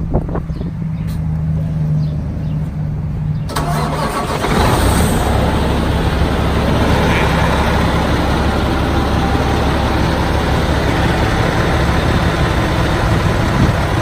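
2012 Peterbilt truck's diesel engine, remote-started by its alarm system after a programmed 10-second diesel delay, starting about three and a half seconds in and then idling steadily.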